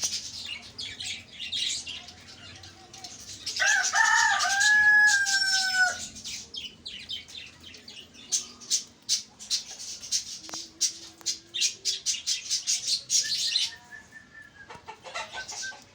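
A flock of budgerigars chattering with quick high chirps throughout. About four seconds in, a rooster crows once, a few short notes and then a long held note that falls slightly, the loudest sound.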